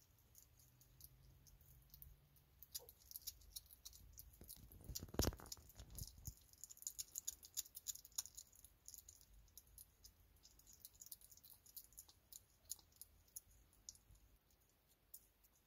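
Young hedgehog eating meat from a dish: faint, quick smacking and chewing clicks, irregular and continuous, with a louder knock about five seconds in.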